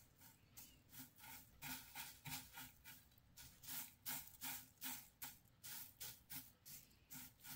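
Faint, irregular crackling and rustling of dry wheat flakes and flax seeds being raked through by fingers on a plate, a few soft crisp clicks a second.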